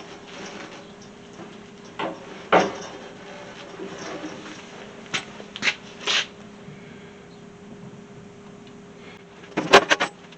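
Scattered knocks and clatters over a steady low hum, with a quick cluster of the loudest knocks near the end.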